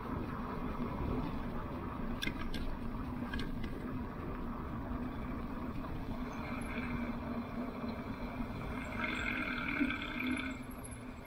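Lectric electric bike riding along a paved trail at about 15 mph: steady tyre, wind and drive noise with a low hum, a few light clicks early on, and a brief higher ringing tone about nine seconds in before the noise eases off.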